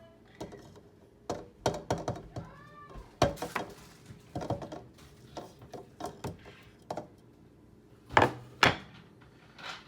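Kitchen dishes and utensils being handled: a run of knocks and clatters, with one short rising-and-falling squeak about two and a half seconds in. Two louder knocks come about eight seconds in.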